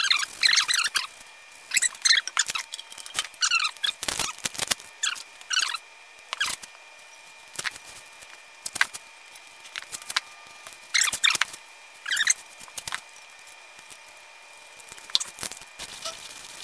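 Clusters of short, high squeaks and screeches from hands working on a painted sheet-metal plate: a gloved hand rubbing over the metal, and blue painter's tape being pulled off its roll and pressed down to mask the part for spray painting.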